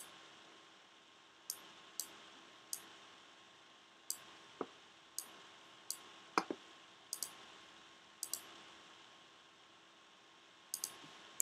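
Irregular computer mouse clicks, some single and some in quick pairs, as settings are changed in a 3D program, over a faint steady hum.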